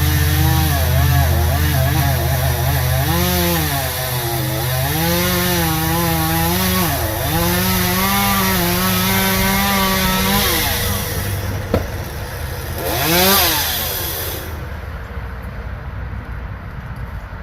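Chainsaw cutting wood, its engine pitch rising and falling as the cut loads it. About ten seconds in it winds down, revs once more briefly, then drops away near the end.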